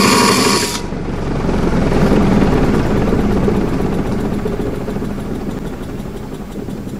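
A power tool on the spindle nut whines briefly and cuts off just under a second in; then the Cub Cadet mower deck spindle, with its pulley and blade, coasts freely with a whirring rumble that slowly fades. This is a spin test that shows the spindle warped and out of round.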